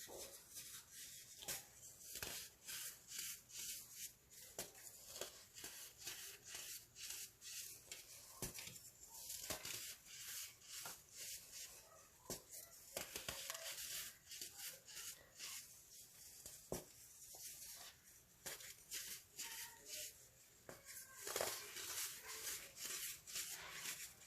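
Crunchy chunks of baking soda being crushed, a dense run of dry, high crackles and crunches that swells and eases in clusters.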